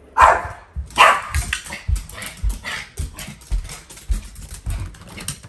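Small black-and-tan dog barking at the front door as visitors arrive: two loud barks in the first second, then a rapid string of shorter, quieter barks.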